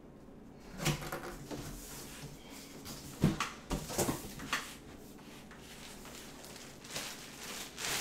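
Scattered knocks and clunks with handling noise as a boxed car seat is unpacked, the sharpest knock about three seconds in, then a quieter stretch.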